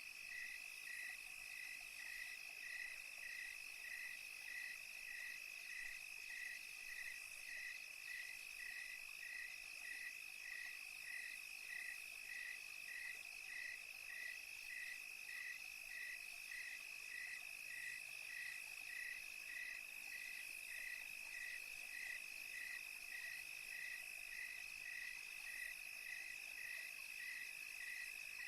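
Night chorus of crickets: a steady high trill, with a second call chirping evenly about one and a half times a second.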